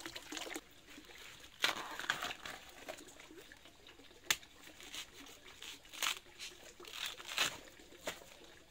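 Irregular rustling, crinkling and tearing handling sounds, with one sharp tap about four seconds in.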